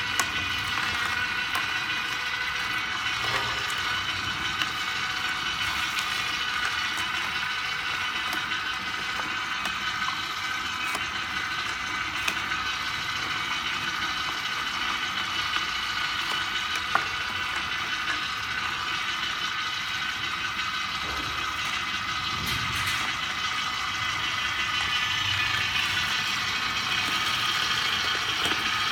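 Vertical slow (masticating) juicer running steadily as its auger crushes carrots, celery and apple: a constant motor whine made of several high tones, with a few sharp clicks.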